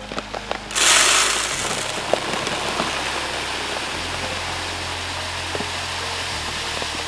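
Wheat and ryegrass seed poured from a bag: a sudden rush of grain under a second in that settles into a steady pouring hiss.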